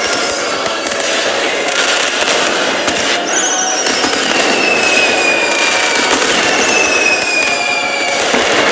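Fireworks crackling and popping without a break, with high whistles that fall in pitch, heard about three times.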